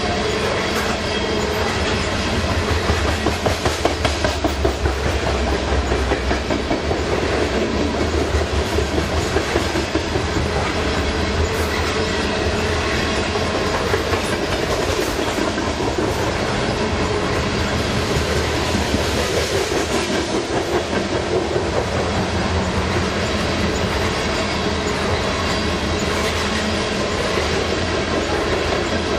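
Freight train of coal hopper cars rolling past at speed: wheels clicking over the rail joints in a running rhythm over a continuous steel-wheel rumble.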